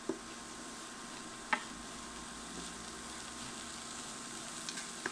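Diced vegetables and flour sizzling gently in a metal pan as they are stirred with a wooden spoon, the flour cooking into a roux with butter. A steady low hiss runs under a few sharp knocks of the spoon against the pan, the clearest about a second and a half in.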